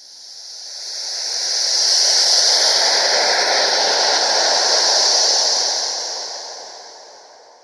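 A gust of wind (a wind sound effect) rushing in, swelling up over about two seconds, holding steady, then dying away near the end; an even rush with much of its weight high in pitch.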